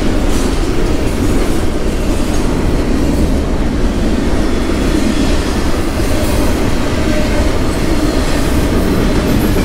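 Freight train of double-stacked container cars rolling across a rail bridge: a loud, steady rumble and clatter of wheels on the rails, with a faint wheel squeal near the start.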